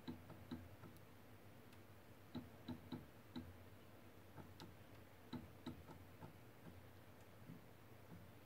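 Faint, short clicks, irregularly spaced and often in twos or threes, from the WeirdCube CoreXY 3D printer's stepper-driven carriage making small moves against a dial gauge.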